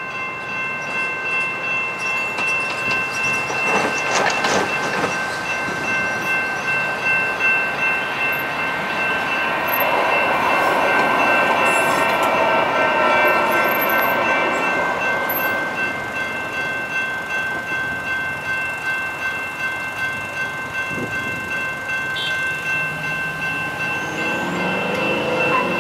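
Railroad crossing warning bells ring steadily in an even pulse while a light rail train passes over the crossing, its running sound swelling and fading in the middle. Near the end, after the gates rise, a car drives across.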